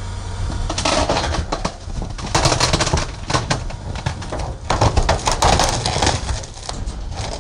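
Garbage truck's rear compactor crushing a mattress in the hopper, slowed down: creaking and crackling come in three surges over a low steady machine hum.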